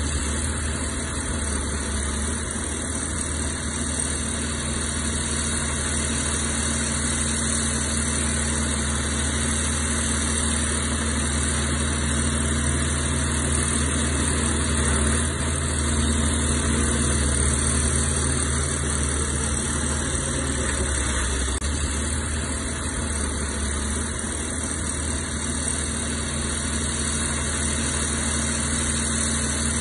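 Heavy diesel engine of earthmoving equipment running steadily, a constant low drone that swells only slightly.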